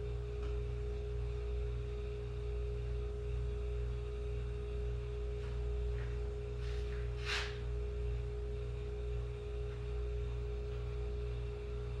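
Steady electrical hum with a constant high-pitched tone, and a brief rustle about seven seconds in.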